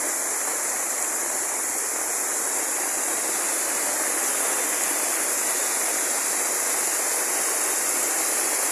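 Steady rush of fast-flowing rainwater after heavy rain, running hard without a break.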